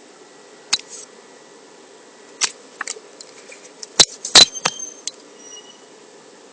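A scattered series of sharp clicks and knocks, the loudest cluster about four seconds in, followed by brief high squeaks. Under them runs a faint steady hum with a thin whine from the 3D-printed brushless motor test setup.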